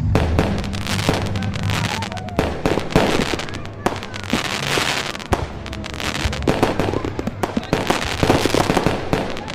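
Fireworks going off: rapid, irregular crackling and popping with several sharper bangs, over background music with a steady bass line.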